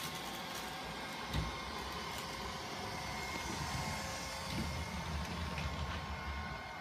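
Neato Botvac D80 robot vacuum running as it drives across a wood floor: a steady whir of its suction fan and brushes with a low hum underneath. A single soft thud about a second and a half in.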